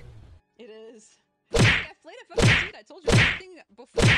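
Four loud slapping whacks, about one every 0.8 seconds, as one cat bats at another. Short wavering, cry-like sounds come before and between them.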